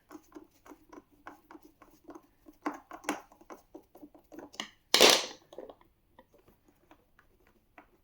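Phillips screwdriver turning a long screw out of a hard plastic car-seat shell: a string of small irregular clicks and creaks, with one louder scrape about five seconds in.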